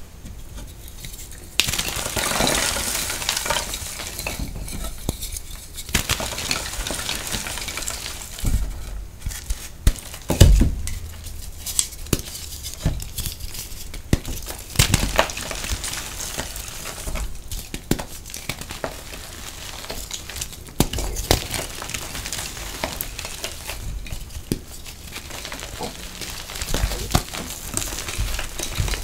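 Hands crushing and crumbling blocks of reformed gym chalk: a continuous dry crunching and grinding, with crumbs and powder falling onto the pile and a few sharper cracks as chunks break, the loudest about ten seconds in.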